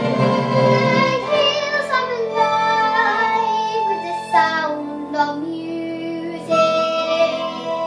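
A young girl singing solo, a slow melody with several long held notes, over an instrumental backing track.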